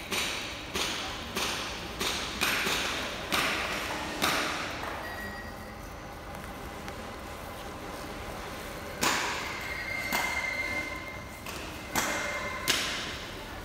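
A run of sharp taps with a short ring, about one every half second, slowing and stopping about four seconds in, then a few scattered knocks later on. They come from a heavy quilted sound-barrier blanket being rolled up on a hard floor, its metal grommets and edging knocking the floor as the roll turns.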